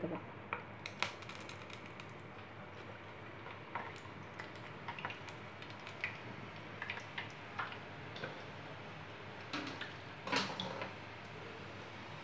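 Rose-shaped pieces of maida dough (golap pithe) deep-frying in hot oil in a steel pan, freshly dropped in: a steady sizzle with scattered sharp pops and clicks, the loudest about a second in and again about ten seconds in.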